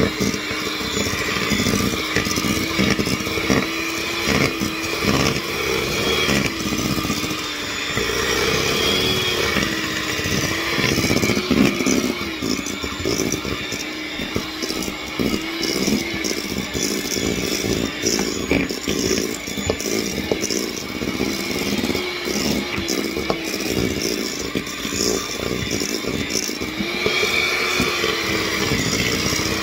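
Electric hand mixer running in a stainless steel bowl, its beaters creaming butter and sugar. The motor's pitch wavers up and down under the load of the stiff mixture, with frequent knocks of the beaters against the bowl.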